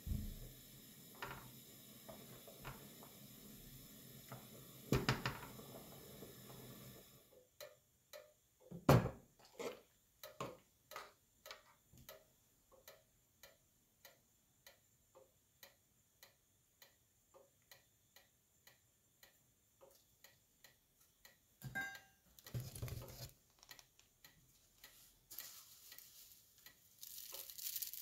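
Pot of rice at a rolling boil, a steady bubbling hiss, with a few knocks as the spatula stirs against the pot. About seven seconds in, the sound drops to quiet with a steady ticking, about two ticks a second. The boiling hiss comes back near the end.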